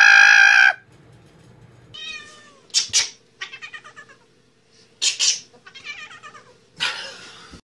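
Cats meowing and yowling: one long, loud cry cuts off just under a second in, then after a short pause comes a run of shorter meows and yowls, some with fast stuttering runs, the last one harsher.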